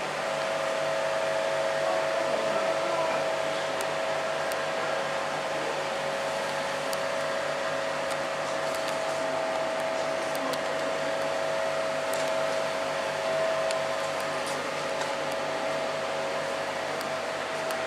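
Steady machine whir with a constant humming tone, unchanging throughout, and a few faint ticks.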